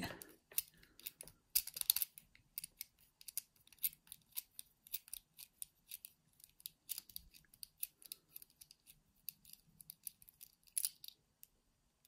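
Small metal tools clicking and scraping against a Ruko rim cylinder lock as it is gutted: quick, irregular light metallic clicks, several a second, with a few louder ones.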